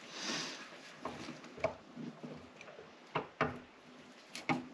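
Scattered light clicks and knocks of metal engine parts being handled on an open cylinder head while the camshaft and timing chain are positioned, with a soft rustle near the start.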